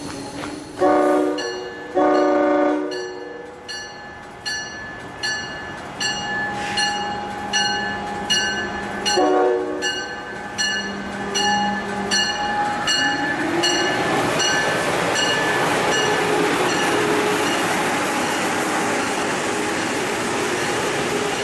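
Amtrak Acela Express trainset sounding its horn twice, then a shorter third blast several seconds later, while its bell rings steadily at about one strike every three-quarters of a second. The train then runs through the station, and the rush of it passing grows and holds near the end.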